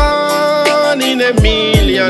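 Instrumental music of a love song: sustained chords over deep kick-drum beats, one at the start and two close together at about a second and a half in.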